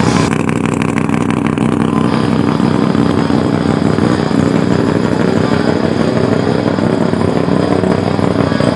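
Diesel pickup truck engines idling together in a line, a loud, steady rumble with a clattery edge. A faint tone rises slowly in the second half.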